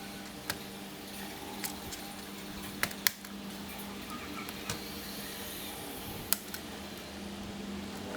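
Scattered sharp clicks and taps as small laptop parts and tools are handled during disassembly, about six in all, two of them close together about three seconds in. A steady low hum runs underneath.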